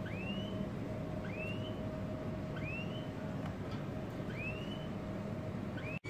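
A caged finch calling: a single rising chirp repeated about every second and a half, five times, over a steady faint hum.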